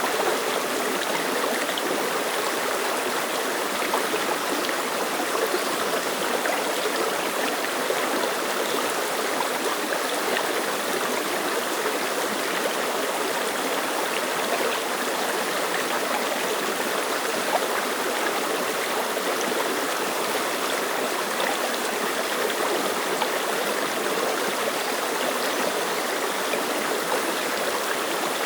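Clear mountain stream flowing and splashing over rocks: a steady, close babble of water.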